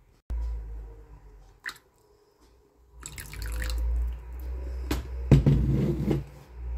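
Liquid dripping and splashing into a bowl of tomato sauce and spices, with a few sharp knocks and low handling bumps.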